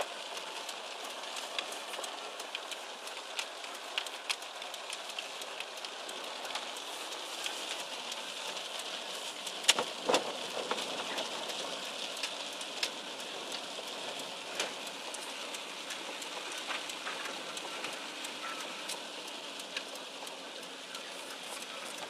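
Rain falling on a car's windshield and roof, heard from inside the car: a steady hiss with many scattered sharp ticks of drops striking the glass and metal.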